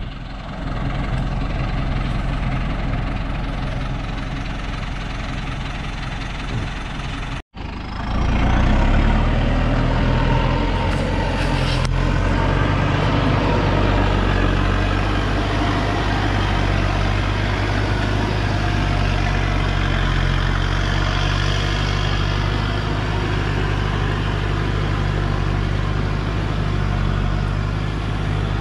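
Diesel engine of a Thaco Forland truck loaded with acacia logs, labouring steadily in low gear as it crawls up a steep dirt track. It cuts out for an instant at about a quarter of the way through, then comes back louder and deeper under load.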